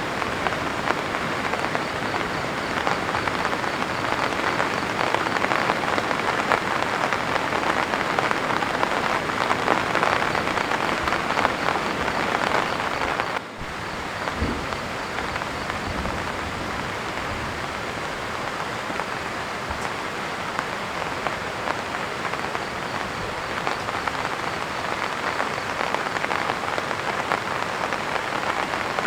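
Heavy rain falling steadily, a dense patter. It drops out for an instant about halfway through, then carries on slightly softer, with a few faint low knocks.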